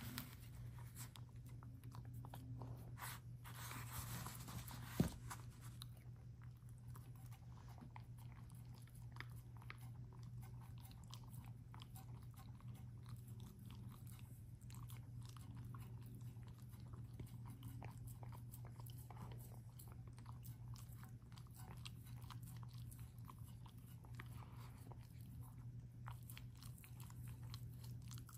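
Small long-haired dog eating food from a stainless steel bowl: quick, faint chewing clicks that go on throughout, with one sharper click about five seconds in.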